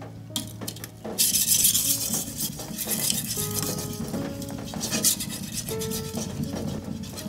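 Steel blade of a Mizuno Tanrenjo wa-gyuto kitchen knife being sharpened on wet whetstones: repeated wet, hissing scraping strokes of the edge pushed back and forth across the stone, starting about a second in.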